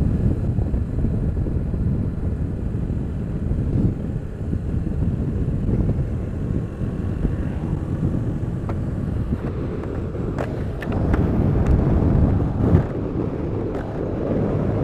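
Heavy, gusty wind rumble on a helmet microphone whose foam windsock has partly come off, over motorcycle riding noise. From about ten seconds in come a few sharp clicks and knocks as the microphone on the helmet is handled.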